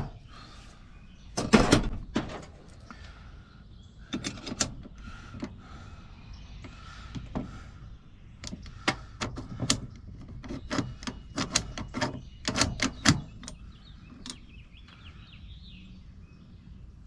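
Small metal lock parts of a Baldwin mortise lock clicking and clacking as they are handled and worked, with one louder knock about a second and a half in and a quick run of clicks in the second half.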